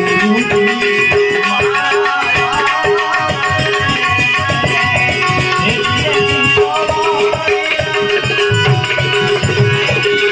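Devotional folk music: tabla and other hand percussion keep a dense, busy rhythm under a steady held note, with a wavering melody line above.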